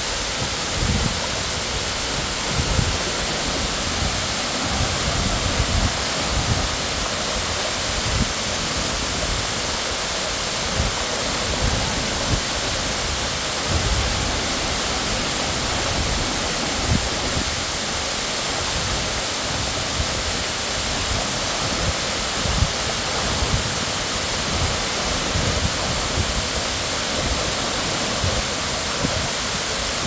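Waterfall pouring steadily: a dense, even rush of falling water, with irregular low thumps underneath.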